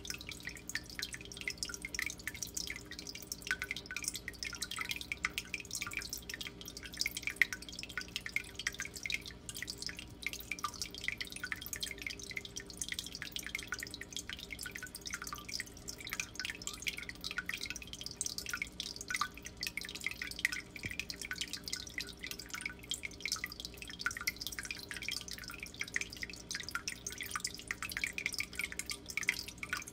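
Aquarium filter return water trickling and splashing into a shallow turtle tank: a continuous, rapid patter of small drips, over a steady low hum from the pump.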